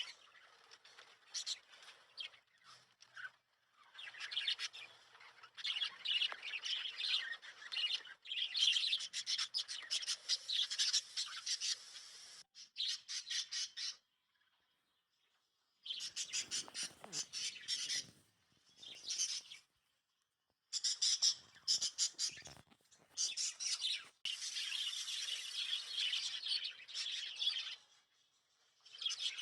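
A flock of small pet parrots (lovebirds) chirping and chattering in rapid, high-pitched bursts, with short pauses between.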